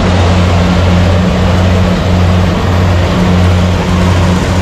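Rice combine harvester's engine running steadily at working speed, loud and close, with a deep even hum under a dense mechanical rush.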